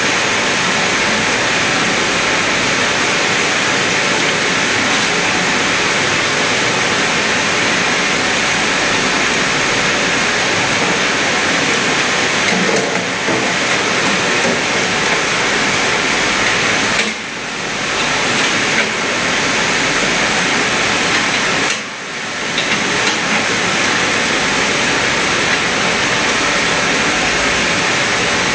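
Electric arc welding with a compact welding machine: a steady, loud crackling hiss of the arc. It breaks off briefly twice, about 17 and 22 seconds in, as the arc is stopped and struck again.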